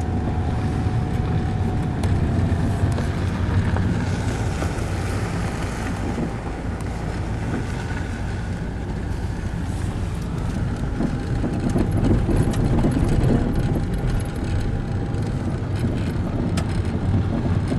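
Steady road noise of a car being driven, heard from inside the cabin: a constant low rumble of engine and tyres.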